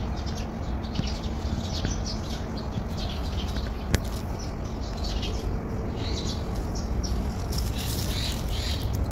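Small birds chirping in quick, short, high notes over a steady low rumble, with one sharp click about four seconds in.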